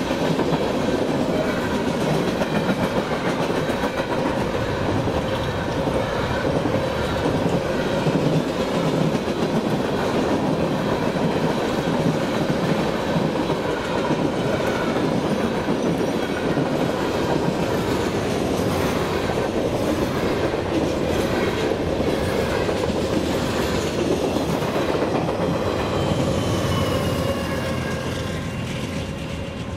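Freight train cars rolling past on the track: a steady rumble with wheels clicking over rail joints, and thin high squeals in the last few seconds as the sound begins to fade.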